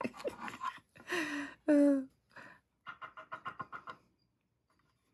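A woman's short voiced sounds, then a soft, breathy chuckle of quick pulses about three seconds in.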